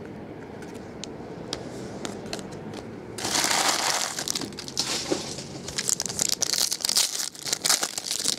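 Light clicks of cards being handled, then a foil trading-card pack wrapper crinkling loudly from about three seconds in and being torn open with repeated crinkles and rips.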